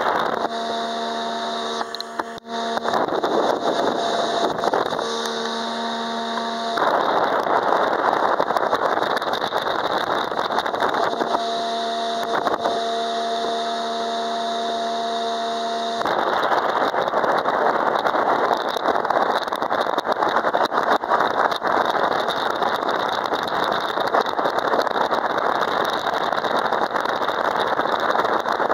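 Speedboat under way, its engine running at a steady pitch that comes through clearly in stretches during the first half. A loud rushing noise of wind and water goes with it and covers the engine from about halfway on.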